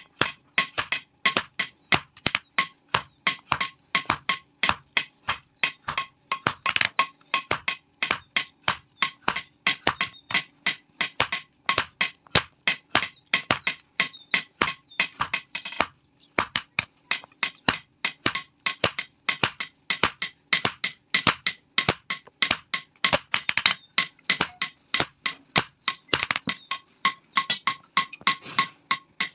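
Hand hammer forging steel on an anvil: fast, even metallic strikes at about four a second, each ringing, with two short pauses, about halfway through and near the end.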